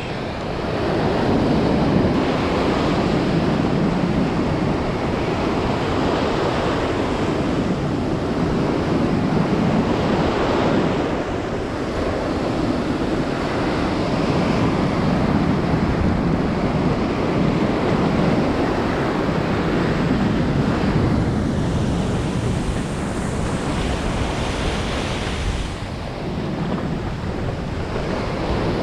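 Ocean surf breaking and washing on a beach, a continuous rushing wash that swells and eases, with wind buffeting the microphone.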